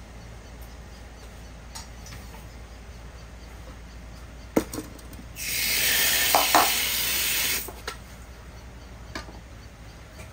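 A water tap turned on for about two seconds, water gushing out with a steady hiss that starts and stops abruptly. A couple of sharp knocks come just before it.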